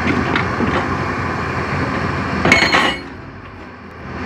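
Toy rock-crusher truck being handled, with dense rattling, knocking and clinking of hard parts. A louder clatter comes about two and a half seconds in, followed by a quieter stretch near the end.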